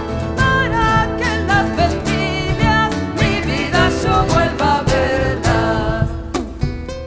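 Live Argentine folk music: acoustic guitars strumming and playing a bass line under a wavering lead melody, in the instrumental passage between sung verses.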